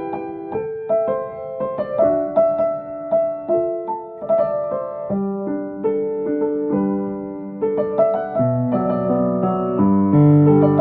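Piano music: a gentle melody in sustained notes over chordal accompaniment, part of a medley of chime tunes. Lower bass notes join about eight seconds in, filling out the sound.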